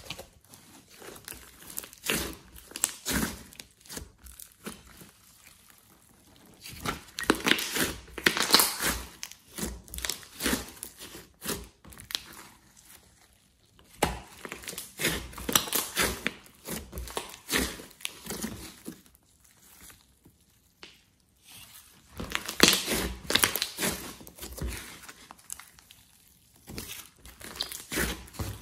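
Hands kneading, squeezing and stretching a large lump of slime mixed with clay, giving sticky sounds made of many small crackles. They come in bursts of a few seconds with quieter pauses between.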